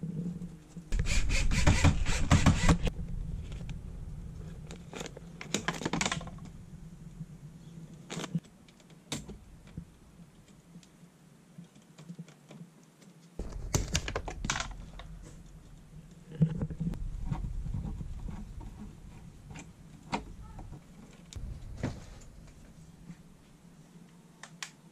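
Irregular clicks, taps and rustling of hands and tools working on electrical wiring, with louder clattering about a second in and again around fourteen and seventeen seconds.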